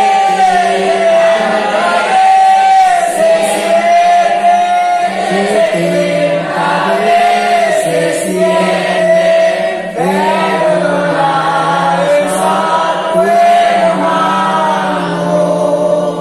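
A congregation singing together: many voices carry a slow melody with long held notes.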